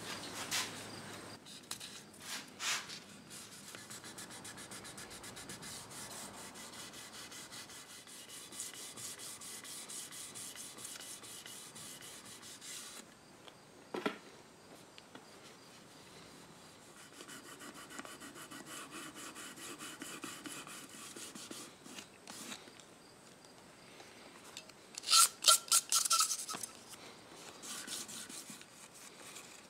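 Hand wet-sanding of a clock case's lacquered finish with 1200-grit wet-or-dry paper and water: quick, even rubbing strokes, pausing briefly midway with a single knock. This is the rubbing-out of a finish left to cure overnight. About 25 seconds in there is a short run of louder scraping sounds.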